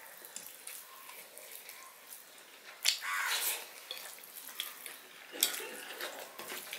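Wet mouth sounds of two people eating fried rice by hand: chewing, lip smacks and small clicks, scattered and irregular, with a louder one about three seconds in.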